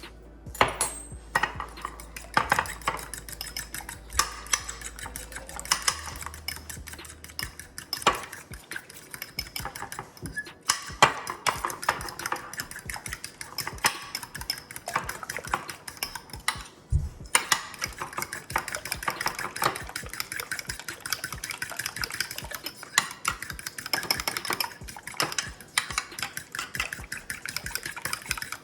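Eggs being beaten in a bowl with a utensil: rapid, irregular clinking and tapping against the bowl, broken by a few short pauses.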